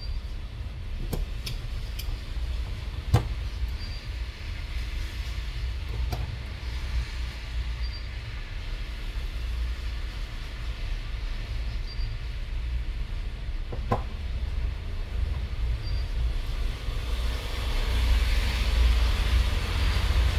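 A few sharp small clicks of metal tools and screws on a phone being reassembled, over a steady low rumble that grows louder near the end.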